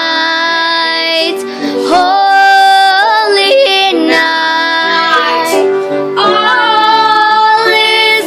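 Children singing a Christmas carol, in long held notes phrase by phrase.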